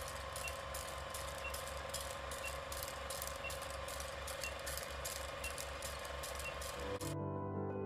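Countdown timer sound effect: rapid, even ticking with a short high beep once a second over a steady low hum. It cuts off abruptly near the end and soft music begins.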